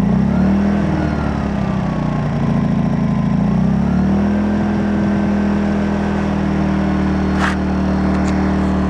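Smarter Tools AP2000IQ inverter generator engine running just after a first-pull start with the choke on; its speed wavers for about four seconds, then settles to a steady run. A single click about seven seconds in.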